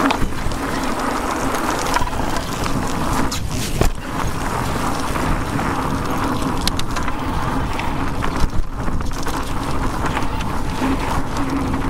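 Electric mountain bike being ridden downhill on a trail: steady wind and tyre noise with scattered knocks and rattles from the bumps.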